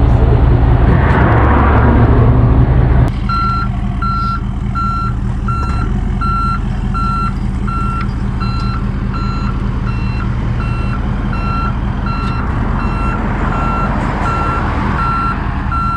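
Tow truck's reverse alarm beeping about twice a second over its engine running. A loud low engine rumble in the first three seconds cuts off suddenly before the beeping starts.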